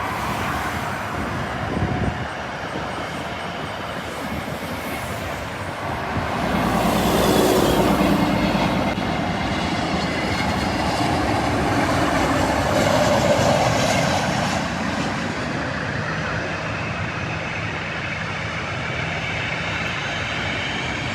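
Jet airliner's engines running as the plane passes, a steady roar with a high whine that swells about six seconds in, stays loudest for several seconds, then slowly fades.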